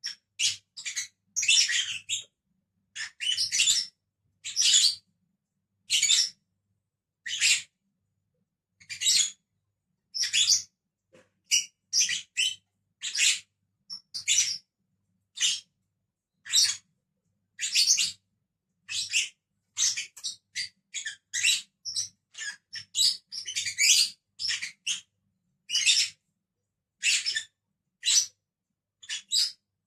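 Pet lovebirds chirping: a steady run of short, high chirps, about one or two a second, with brief quiet gaps between them.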